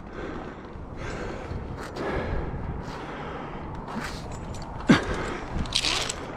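A tree climber breathing hard in gasps and puffs during a rope ascent, with one sharp knock about five seconds in.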